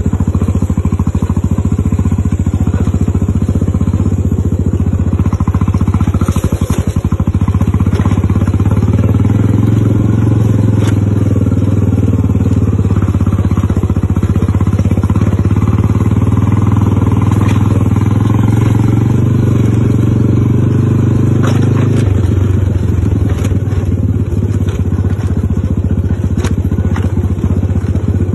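A small engine running steadily with a fast, even pulse, working harder from about nine seconds in and easing off suddenly about 22 seconds in.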